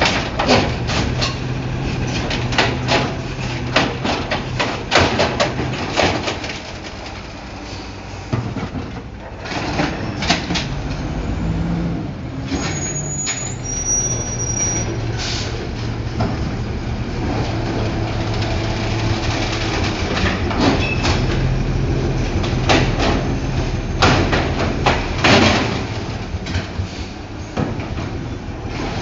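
Freightliner Condor automated side-loader garbage truck with an Amrep Octo arm dumping a trash cart: its engine runs steadily under the hydraulic arm while the cart and arm clank and bang repeatedly against the hopper for the first several seconds. A second run of bangs comes about three-quarters of the way through.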